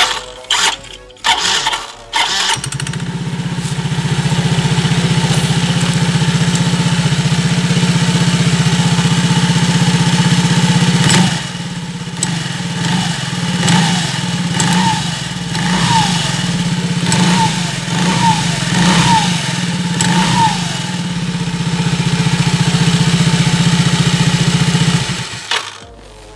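A small engine or motor starts about two and a half seconds in, runs steadily with an even pulsing for about twenty seconds, then cuts off suddenly near the end. A string of short falling chirps sounds over it midway.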